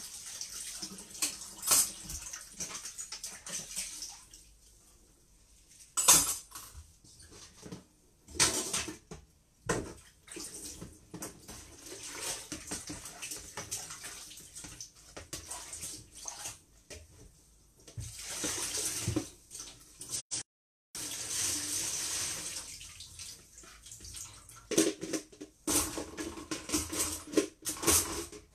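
Kitchen tap running in stops and starts into a sink as bowls are washed, with splashing and the knock and clatter of bowls and a colander against the sink.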